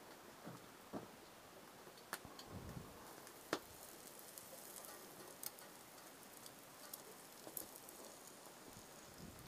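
Faint sizzling and crackling of food frying in a pan on a camp stove, with a few sharp clicks, the loudest about three and a half seconds in.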